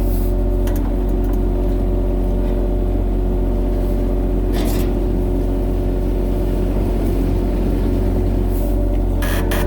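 Excavator's diesel engine running steadily under load, with a couple of short knocks from the machine's work about halfway through and near the end.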